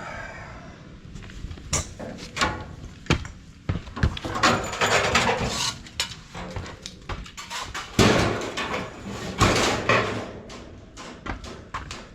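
Irregular metallic clicks and knocks with stretches of scraping and rustling: tools and gas fittings being handled and worked on.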